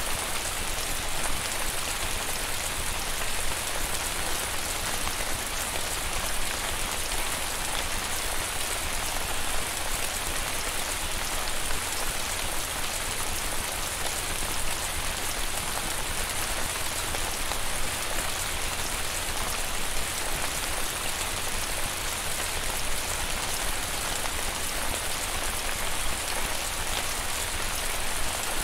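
Rain falling steadily, an even, dense patter with no wind.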